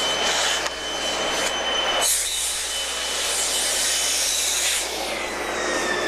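Ruwac silo central vacuum's 5 HP regenerative blower running, a loud rush of air through the hose with a steady high whine. About five seconds in it begins to wind down, its whine falling steadily in pitch as the blower coasts to rest.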